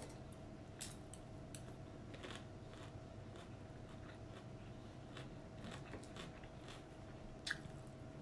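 Faint chewing of a mouthful of stir-fried noodles, with a few light clicks of a metal fork against the plate, over a faint steady hum.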